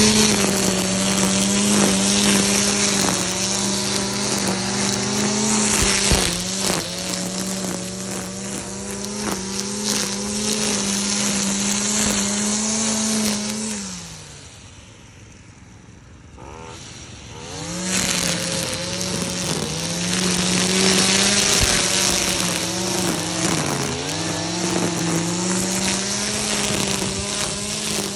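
Stihl FS 55 R two-stroke petrol strimmer running at high revs, its nylon line cutting grass and weeds. About halfway through the engine note falls away for a few seconds as the throttle is released, then revs back up, dipping once more briefly near the end.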